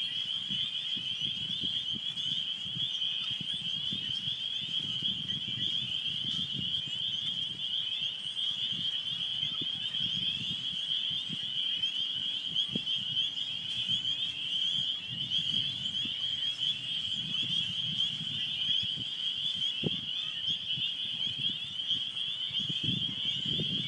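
Chorus of spring peepers: many frogs giving short, high, rising peeps at once, blending into a steady shrill ringing.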